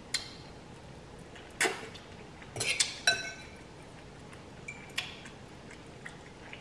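Metal fork clinking against a glass bowl as noodles are stirred and picked up: about half a dozen separate sharp clinks, a couple of them ringing briefly.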